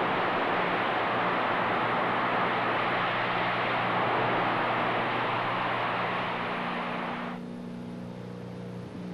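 Steady, loud rushing noise of burning sour gas jetting from the blown-out wellhead. It cuts off suddenly about seven seconds in, leaving only a faint low hum.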